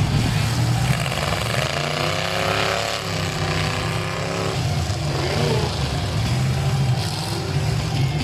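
Several demolition derby trucks' engines running hard together in a dense, loud drone. One engine revs up and down about two to four seconds in.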